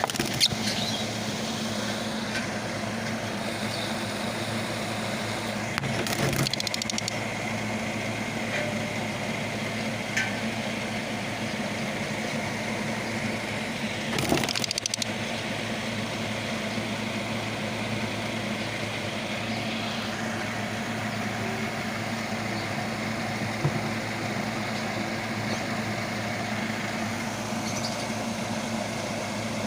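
A steady mechanical hum, with a few scattered knocks.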